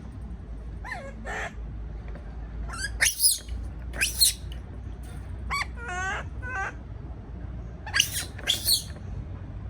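Baby monkey calling repeatedly: about nine short cries, some gliding in pitch and a few shrill screeches about three, four and eight seconds in. These are distress calls at being left alone in its cage.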